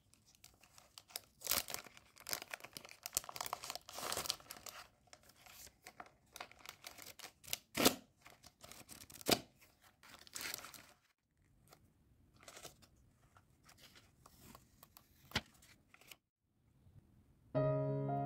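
Plastic wrapping of a pack of coloured paper crinkling and rustling in the hands as a sheet is pulled out, with sharp clicks. The handling goes quieter after about 11 s and stops, and piano music starts about a second before the end.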